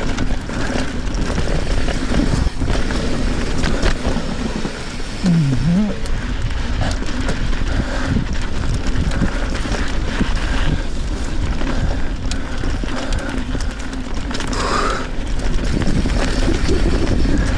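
Riding noise from a Trek Fuel EX 7 full-suspension mountain bike on sandy singletrack: a steady rush of wind and tyre noise, broken by many small knocks and rattles as the bike goes over bumps.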